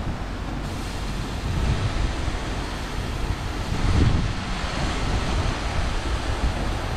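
Aquarama Stargate S10 rollover car wash gantry applying the chemical pre-wash and alloy wheel product: a steady hiss of spray over the low running rumble of the machine, brightening a little under a second in, with a louder low surge about four seconds in.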